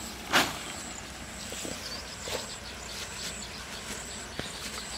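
A single short, loud rustling swish about a third of a second in, as a white sack is shaken out. Behind it, an insect's high, thin trill switches on and off every second or so, with light handling clicks.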